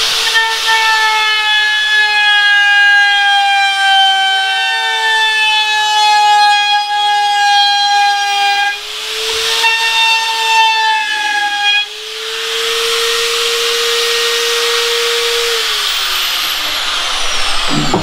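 Bosch plunge router running with a high steady whine while rounding over the curved edge of a wooden board. The pitch sags briefly under load a couple of times. Near the end it is switched off and winds down with a falling whine.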